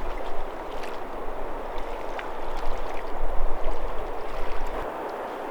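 River water flowing and rippling steadily, with a low rumble underneath that fades about five seconds in.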